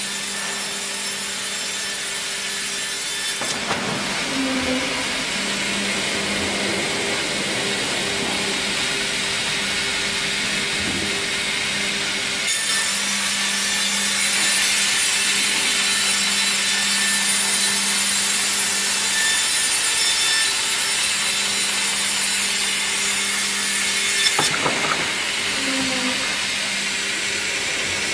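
Sawmill line cutting a log: a debarker liner's small circular saw scores the bark and a band saw cuts through the wood, a dense sawing noise over a steady electric-motor hum. The sawing changes abruptly about 3.5 s, 12.5 s and 24.5 s in, and is loudest and brightest in the middle stretch.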